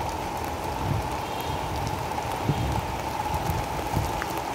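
Heavy rain falling steadily on a flooded concrete rooftop, with drops close by knocking on the hardboard held over the phone.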